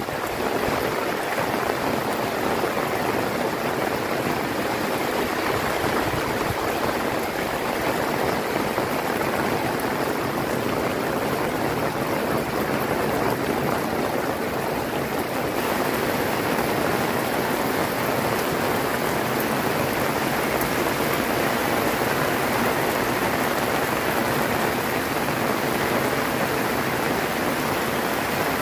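Heavy rain falling steadily, a continuous even hiss.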